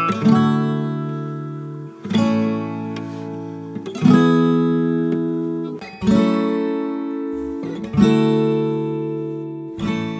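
Background music: an acoustic guitar strums slow chords, a new chord about every two seconds, each one ringing out and fading.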